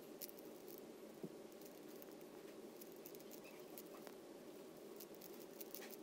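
Faint, irregular plastic clicking of a Rubik's Cube's layers being turned by hand, over a steady low room hum.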